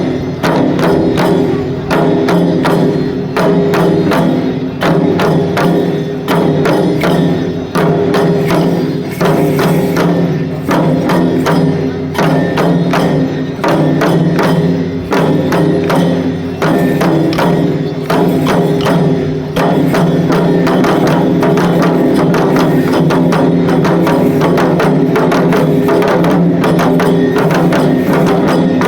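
Lion-dance festival music: a taiko drum and a small gong struck in a fast, driving pattern over a steady ringing tone. About two-thirds of the way through, the short pauses between phrases stop and the playing runs on continuously.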